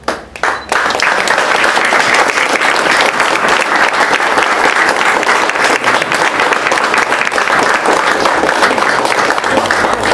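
A roomful of people applauding, starting suddenly just after the start and going on steadily.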